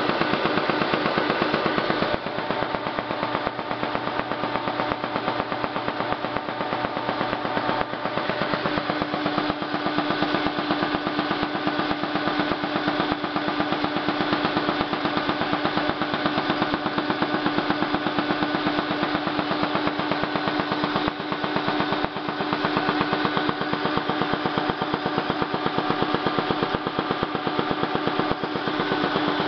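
Halm Super Jet two-colour perfector envelope press running, feeding envelopes through with a rapid, steady mechanical clatter over a steady hum. The hum grows stronger about a third of the way in.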